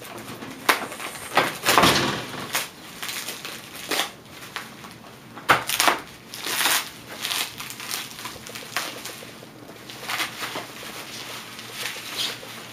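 Plastic bubble wrap being picked at, pulled open and crinkled by hand, in irregular crackling rustles that come and go, loudest about two seconds in.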